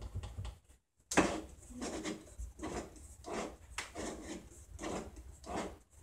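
Wooden combination dial of a homemade wooden safe turned by hand, with wood rubbing on wood. One sharp knock comes about a second in, then a rubbing stroke roughly every two-thirds of a second as the dial is worked.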